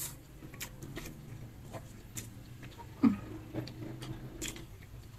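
Close-up eating sounds: a person chewing a mouthful of saucy stir-fried instant noodles, with scattered wet mouth clicks and lip smacks as fingers are licked, and a short low voice sound about three seconds in.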